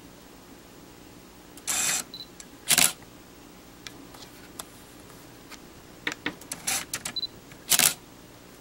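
Sony DT 50mm f/1.8 SAM lens's autofocus motor buzzing in short bursts as it drives the focus, about two seconds in, at three seconds and near the end, with a run of small clicks between. Twice a short high beep sounds, the camera's focus-confirmation signal.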